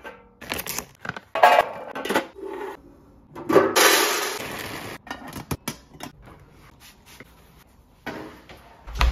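Dry dog kibble poured from a bag into a metal canister: a loud, rattling rush of about a second and a half starting around three and a half seconds in. Before it, short clicks and knocks of things being handled and set down; near the end, a rustle and a low thump.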